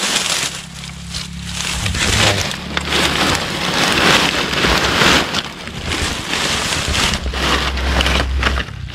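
Dry banana leaves and dried cane stalks crackling and rustling as they are pulled aside by hand, in uneven surges.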